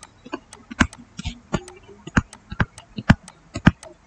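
Digital pen stylus tapping on a tablet surface while handwriting: a string of sharp, irregular clicks, a few each second, one with each pen stroke.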